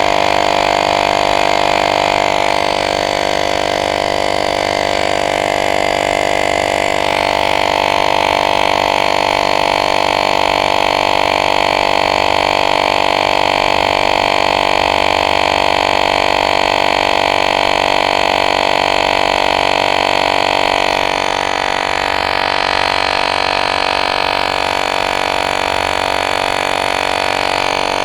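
Motorised air pump (tyre inflator) running steadily as it inflates an e-bike's front tyre, which holds liquid sealant, towards about 35 psi. It keeps a constant droning tone, with slight changes in tone a few times.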